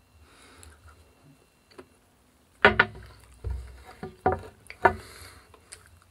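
Handling noises: a run of about five sharp knocks and clicks, starting a little over halfway in, as small objects are handled and set down on a table.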